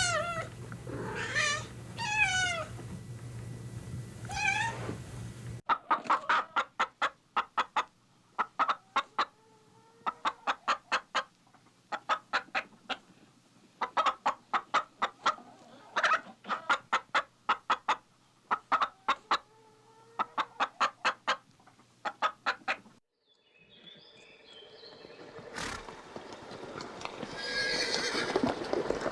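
A cat meowing a few times, then a hen clucking in repeated quick runs of short clucks. Near the end a rising rushing noise comes in.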